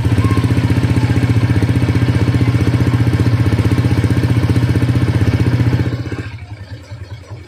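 Honda Click 150 scooter's single-cylinder four-stroke engine idling through an MT8 aftermarket exhaust, heard close to the muffler outlet as a steady, even pulsing. About six seconds in it becomes quieter.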